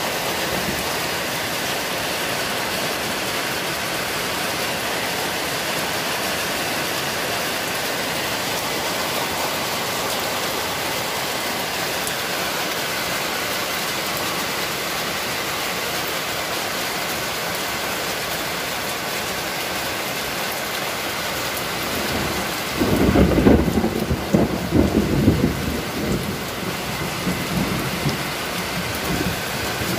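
Heavy rain falling steadily on a concrete street, an even hiss. About 23 seconds in, a loud, rolling rumble of thunder swells and fades over several seconds.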